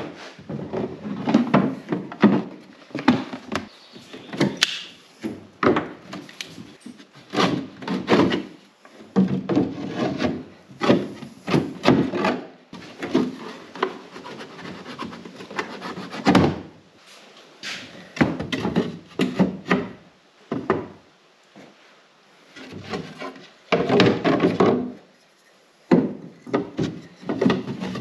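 Plywood panels and pine boards being handled and test-fitted into a wooden frame: irregular wooden knocks and clunks mixed with boards scraping and sliding against each other.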